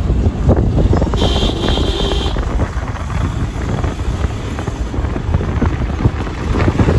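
Wind buffeting the microphone through an open car window while driving, over the car's road noise. A brief high tone sounds about a second in and lasts about a second.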